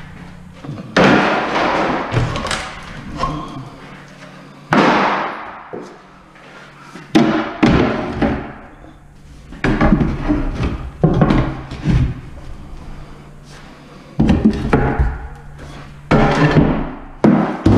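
Upper kitchen cabinets, white laminated board, being pried off the wall with a steel pry bar. There are repeated sharp knocks, cracks and bangs, about a dozen in all, several coming in quick pairs.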